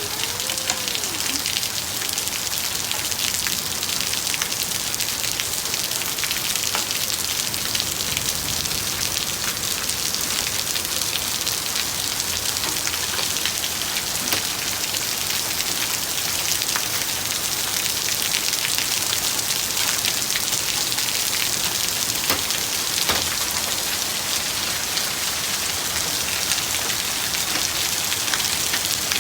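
Heavy rain and hail coming down steadily during a hailstorm: a dense, even hiss of falling water with scattered sharper hits.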